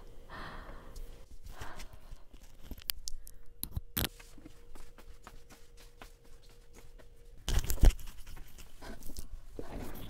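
Rustling, small clicks and knocks of a clip-on microphone and clothing as a person moves about getting up from and back into a mesh office chair, with a louder thump about three-quarters of the way through.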